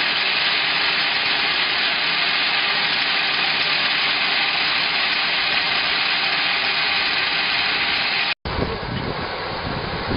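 Grain-processing machine of a pellet production line running as shelled corn kernels pour into its hopper: a loud, steady, dense hiss of grain with a faint motor hum. It cuts out sharply about eight seconds in, and a lower, rougher machine rumble follows.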